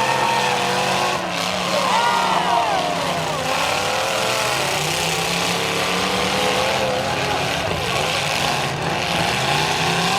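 Several demolition-derby vehicles' engines revving together, their pitches rising and falling over one another above a steady low engine drone.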